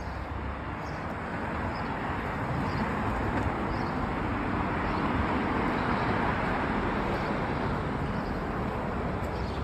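Street traffic noise: a passing vehicle's road noise swells to its loudest about halfway through and then eases off slightly.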